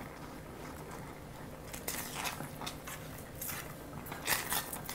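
A wooden spatula stirring thick homemade chili paste (gochujang: chili powder and salt in a cooked glutinous-rice paste) in a stainless-steel saucepan. The strokes scrape irregularly against the pot, louder about two seconds in and again near the end.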